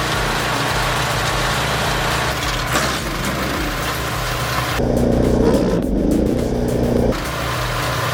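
Wood-chipping machine running steadily under load. About five seconds in, the sound switches abruptly to a louder, deeper engine hum for about two seconds, then the steady machine noise returns.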